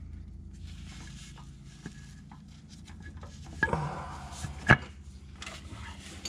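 Strap hook and buckle clicking and clanking against the steel of a transmission jack as a strap is fitted around a manual transmission, with a short clatter and then one sharp metal knock a little past halfway. A steady low hum runs underneath.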